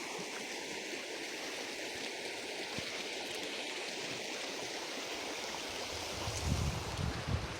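Steady rushing of flowing water, like a stream, with gusts of wind buffeting the microphone as a low rumble from about six seconds in.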